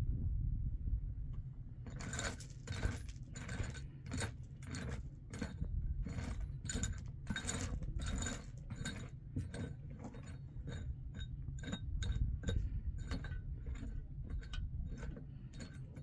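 Quick, irregular metallic clinks and scrapes, several a second, beginning about two seconds in, over a low steady rumble.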